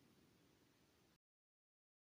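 Near silence: a faint trace of residual noise that drops to digital silence about a second in.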